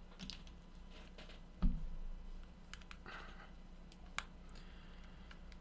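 Hands rummaging among small items on a desk: scattered light clicks and rustles, a soft thump about one and a half seconds in, and a sharp click near four seconds, over a faint steady hum.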